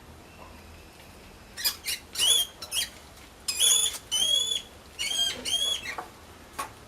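Mouse squeaking: a run of short, high-pitched squeaks, starting about a second and a half in, some of them drawn out and bending in pitch.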